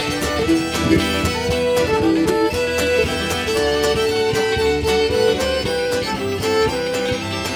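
Ceilidh band playing a traditional reel: fiddles carry the melody over strummed acoustic guitars and a double bass.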